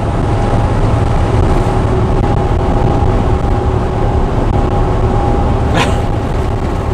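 Cab noise of a heavily loaded semi truck driving: a steady drone of engine and road with a faint steady whine. A brief sharp sound cuts through about six seconds in.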